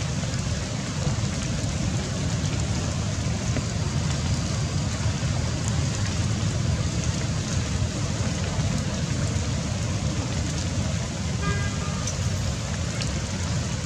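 Steady rushing outdoor noise, heaviest in the low end, with no calls standing out; a brief faint high chirp comes about eleven seconds in.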